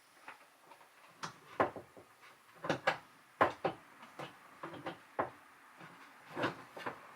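Irregular knocks and clunks, about a dozen short hard taps and bumps, as a loose RV toilet and its fittings are handled and worked loose.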